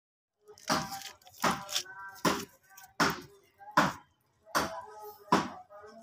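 Background music: a rhythmic track with sharp percussive hits at a steady beat and a plucked-sounding melody between them.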